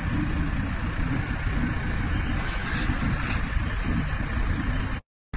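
Steady low rumble of an idling vehicle engine mixed with street noise. It cuts off abruptly about five seconds in.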